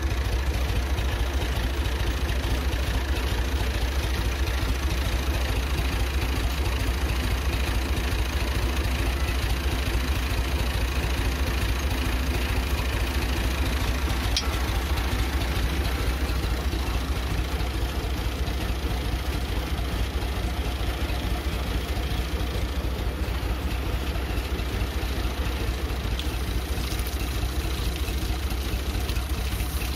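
Tractor engine running at a steady speed, driving the sprayer's pump while the tank and hoses are flushed out; a loud, even hum throughout.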